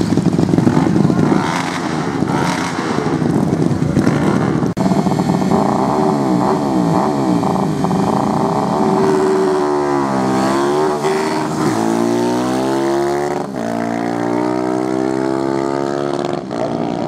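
Two drag-racing motorcycles at full throttle: the engines rev up and down in bursts at the start line, then climb steadily in pitch as they launch and accelerate down the quarter-mile strip, running on at a high steady pitch near the end.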